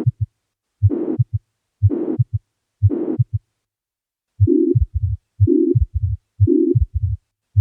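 Heart sounds at about one beat a second, with a systolic murmur of mitral regurgitation between the short low heart-sound thuds. Two examples are played. The first murmur is harsher and reaches higher pitches, ending about three and a half seconds in. After a second's pause, a second example has a lower, narrower murmur.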